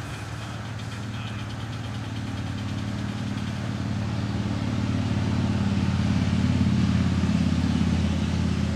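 A 7.5-inch gauge live steam locomotive pulling a loaded riding train, approaching and passing close by. A steady low rumble grows louder, is loudest about six to eight seconds in, then eases a little.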